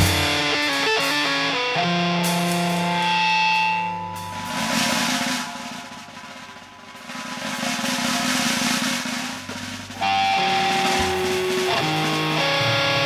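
Improvised instrumental music on electric guitar and drum kit: held guitar notes, then a stretch of drums and cymbals that dies down around the middle, before guitar notes come back sharply about ten seconds in.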